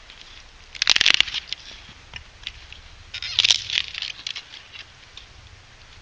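A cedar board being split lengthwise with an axe, the wood cracking and tearing apart along the grain. It comes in two loud bursts of crackling, about a second in and again about three and a half seconds in.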